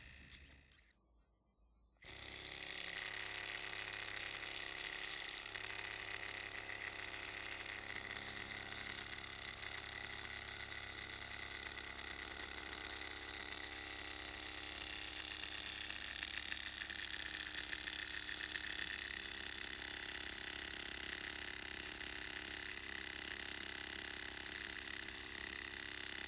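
Glass-syringe free-piston Stirling engine running steadily, its rubber-band-sprung power piston oscillating with a steady low hum and rapid fine chatter, while the flame burner under the hot end gives a steady high-pitched note. The sound starts about two seconds in, after a brief gap.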